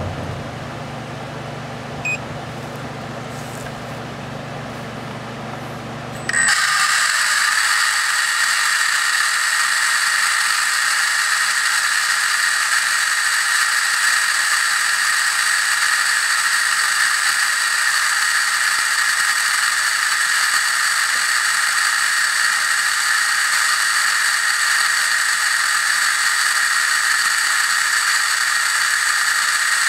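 ORCA Blitreme 3 brushless RC motor switching on abruptly about six seconds in and running at full throttle against a 41-tooth gear load: a loud, steady high-pitched whine with gear noise, holding one speed. Before it, a quieter low hum with a single short click about two seconds in.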